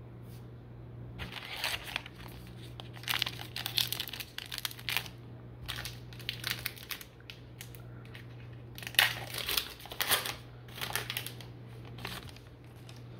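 A baseball card pack wrapper being torn open and crumpled: irregular bursts of crinkling and tearing, the sharpest about nine seconds in, over a steady low hum.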